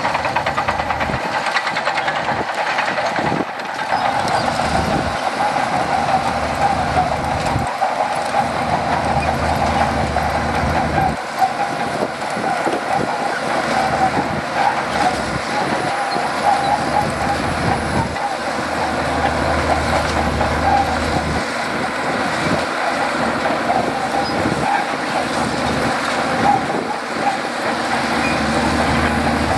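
Shantui DH17C2 crawler bulldozer working: its diesel engine and steel tracks make a loud, continuous mechanical noise, with a low rumble that drops away and returns every few seconds as the load changes.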